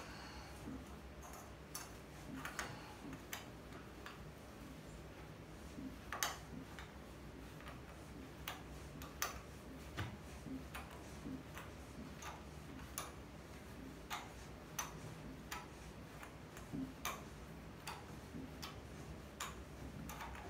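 Light, irregular clicks and taps of small engine parts and tools being handled on a workbench, over a faint steady low hum.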